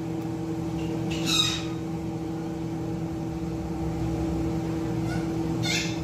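A steady mechanical hum, like a running fan or appliance. Over it come two brief high, wavering calls, one about a second in and one near the end.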